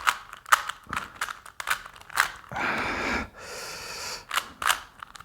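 Plastic Rubik's Cube being turned quickly by hand, a sharp click with each face turn, two or three a second. Near the middle the clicking pauses for a heavy breath out, then a softer breathy hiss, before the turns go on.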